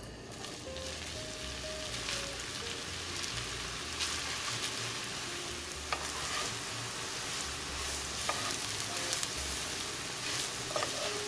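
Rehydrated soy crumbles sizzling as they fry in hot oil in a nonstick skillet: a steady hiss, with a few light taps of a utensil stirring them.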